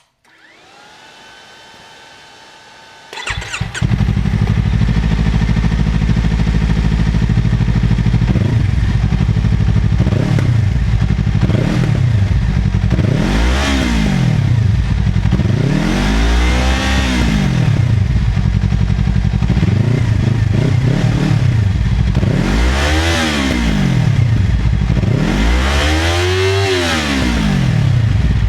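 Yamaha R3 motorcycle with an Akrapovič exhaust: a faint rising whine, then the parallel-twin engine starts about three seconds in and idles. It is then revved again and again, each rev rising and falling in pitch, the later ones longer and higher.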